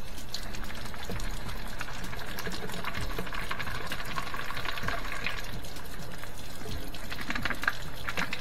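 Water sloshing and splashing inside an old Moffat dishwasher's rinse-aid dispenser as it is flushed and shaken to loosen crystallised buildup, with a steady low hum and many small irregular clicks and rattles.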